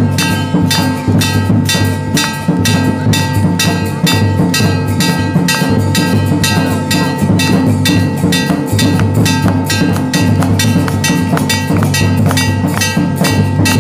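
Devotional aarti music of fast, even percussion strokes, about four a second, over steady ringing tones and a deep low drone.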